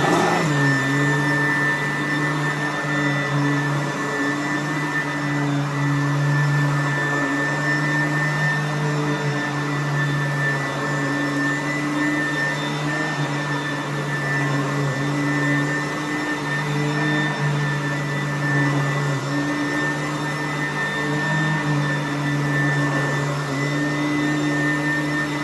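Sanitaire upright vacuum cleaner running on carpet: a steady high whine over a low motor hum that swells and dips every few seconds.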